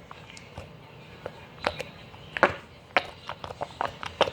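Homemade Pop-Tart squishy being squeezed by hand, giving irregular sharp squishing clicks and crackles that come more often near the end.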